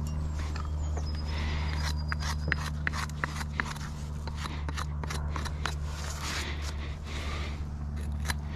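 Irregular sharp clicks and scraping over a steady low hum.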